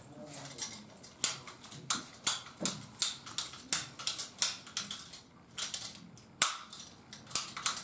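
Vessel ratchet hand rivet gun clicking as its handles are squeezed in repeated strokes, setting a 3.2 mm blind rivet. Sharp clicks come about two to three a second, with a short pause about five seconds in.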